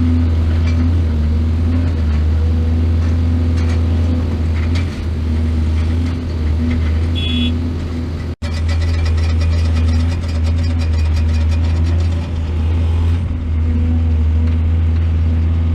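Heavy diesel engine of a mining excavator running steadily under load, a deep even drone. About eight seconds in the sound cuts out for an instant, and for several seconds after that a rapid, even clatter rides on the engine.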